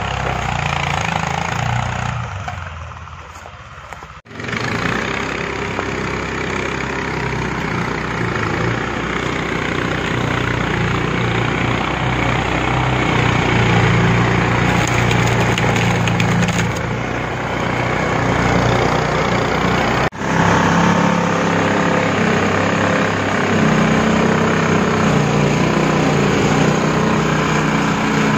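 Engine of a wheeled skid-steer all-terrain vehicle running steadily as it drives, with the sound breaking off sharply twice, about four and twenty seconds in.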